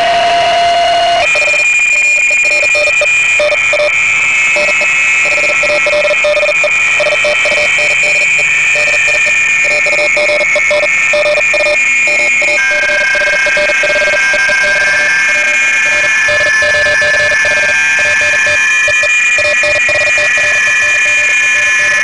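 Shortwave receiver audio of several BPSK31 digital-mode signals on the 40-metre amateur band: a cluster of steady, rapidly fluttering tones over band hiss. The mix of tones changes abruptly about a second in and again a little past halfway.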